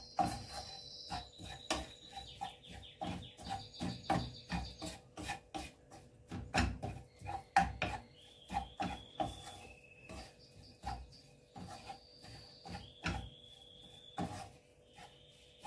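Wooden spatula stirring and tossing noodles and seafood filling in a frying pan, tapping and scraping against the pan in quick, irregular knocks.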